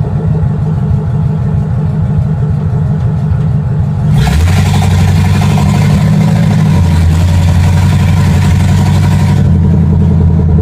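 1955 Chevy panel truck engine running on open headers, heard from the cab while driving. About four seconds in the engine note rises and gets louder as it pulls away. A loud rushing hiss starts with it and cuts off sharply about five seconds later.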